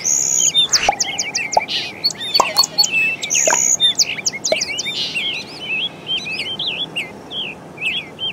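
Birds chirping and calling: many quick, overlapping high chirps and sweeping notes, with a couple of brief held whistles.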